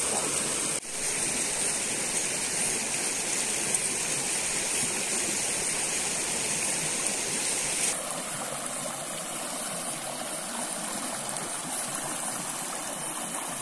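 Shallow rocky stream rushing over stones in a steady wash of water. It dips briefly about a second in and runs a little quieter from about eight seconds.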